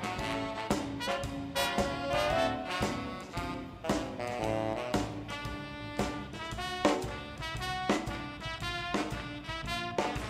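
Swing band playing an instrumental horn passage: trombone, saxophones and trumpet over a driving drum kit with regular snare and cymbal hits.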